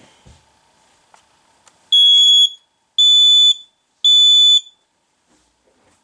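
First Alert photoelectric smoke alarm sounding on its test button: three loud, high-pitched beeps of about half a second each, a second apart, in the standard three-beep alarm pattern. The sounder is partly covered with tape to damp it.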